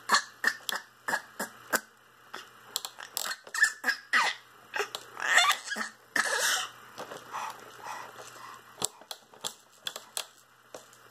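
High-pitched, dolphin-like mouth noises: a run of quick, uneven clicks with a couple of longer squeaks in the middle.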